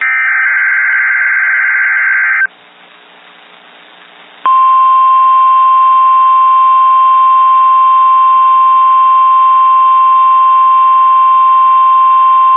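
Emergency Alert System signal: a harsh, buzzing digital data burst (the SAME header code) for about two and a half seconds, a short pause of faint hiss, then about two seconds later the steady single-pitch attention tone of the NOAA Weather Radio alert, held loud and unbroken.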